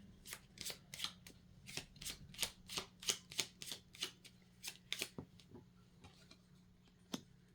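A deck of Lenormand oracle cards being shuffled by hand: a quick run of soft card slaps about three a second, thinning out to a few after about five seconds.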